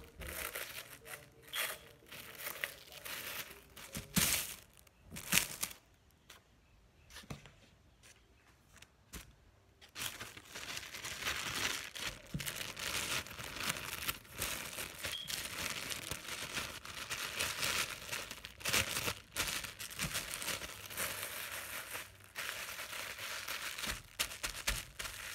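Thin clear plastic bag crinkling and rustling as a sandwich is wrapped in it by hand. The crinkling thins out for a few seconds about a quarter of the way in, then goes on steadily and thickly.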